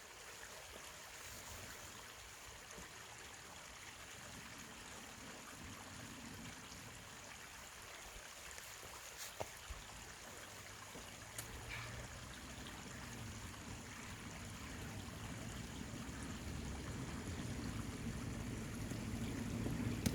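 Mountain valley stream running, a steady rush and trickle of water that grows gradually louder, with a couple of faint clicks about halfway through.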